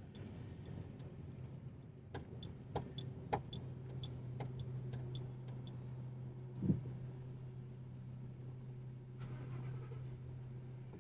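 Car engine idling with a steady low hum, heard from inside the cabin with the window down. Between about two and five and a half seconds in come a dozen or so light clicks, and there is one dull thump near the middle.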